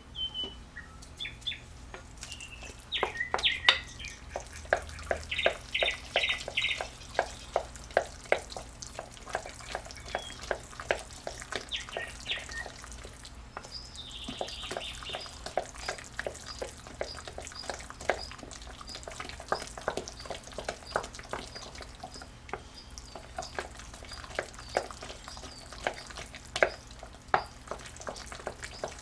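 Quick light clicks and taps of a utensil working food in a bowl or on a board, a few a second, with birds chirping; through the second half a high chirp repeats about twice a second.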